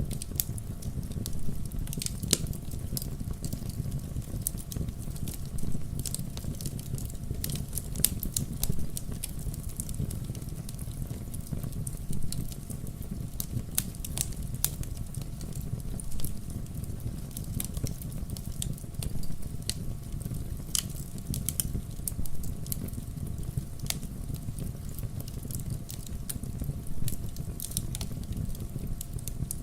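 Wood logs burning in a fireplace, crackling with frequent irregular sharp pops over a low steady rumble of the flames.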